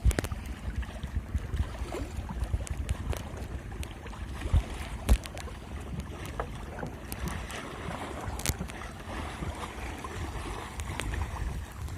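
Wind buffets the microphone on a small fishing boat at sea, over water lapping at the hull, with scattered sharp knocks and clicks.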